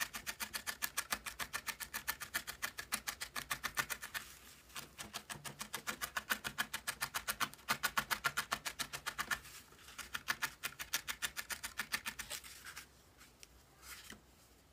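A felting needle stabbing wool into a foam pad: a quick, even run of soft ticks, about six or seven a second, as the wool is firmed and shaped. Two short pauses break the run, and it stops about two seconds before the end.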